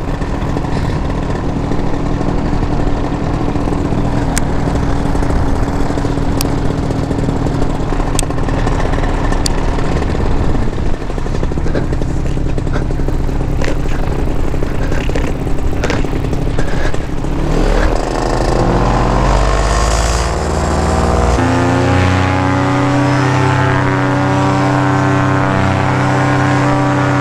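Blackhawk Airmax 220 paramotor engine and propeller running steadily, then revving up over a few seconds past the middle and holding at high throttle for the takeoff and climb.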